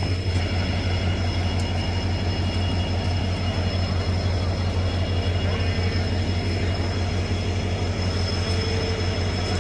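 Passenger train running along the track, heard from aboard: a steady low rumble with a few thin, steady high whines through it.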